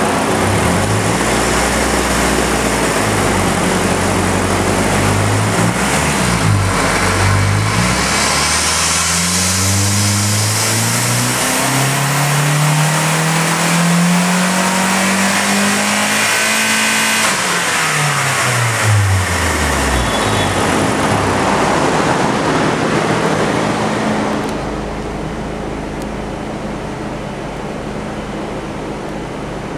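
2009 Mazdaspeed3's turbocharged four-cylinder engine on a dyno: a few short revs, then a full-throttle pull with the engine pitch climbing steadily for about eight seconds and a thin whine rising above it. It then falls away quickly as the throttle closes and settles to a lower, steady running sound for the last few seconds.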